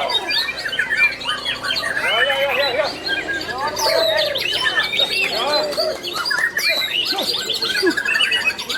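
Many white-rumped shamas (murai batu) singing at once, a dense tangle of overlapping whistles, trills and chirps that never lets up.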